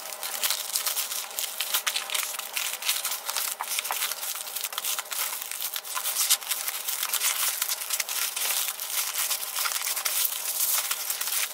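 USPS Priority Mail padded flat rate envelope crinkling and rustling without a break as rolled denim jeans are pushed into it by hand.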